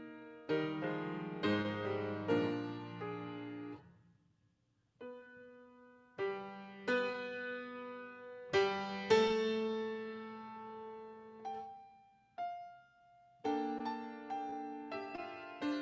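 Solo piano playing slow chords and single notes that ring and die away. The music breaks off almost to silence about four seconds in, and thins to one held note near twelve seconds before the chords return.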